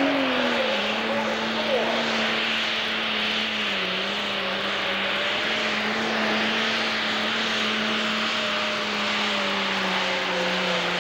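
Pro stock pulling tractor's turbocharged diesel engine running at full power while pulling a weight-transfer sled: a loud, steady drone with a high hiss and whine over it. Its pitch dips briefly about four seconds in and sags slightly near the end.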